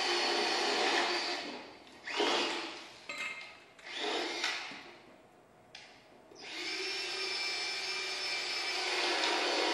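Harsh machine-like buzzing played through the battered loudspeakers of a sound sculpture, with a steady hum and a high whine. It drops out about two seconds in, comes back as a few short bursts, goes nearly quiet, then returns as a steady drone for the last few seconds.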